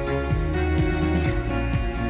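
Background music with held chords and a steady, even beat.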